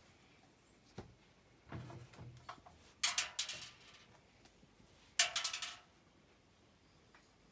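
Washing machine drum turning its load, giving short rattling clatters about two seconds apart, with a click and a soft low thud before the first.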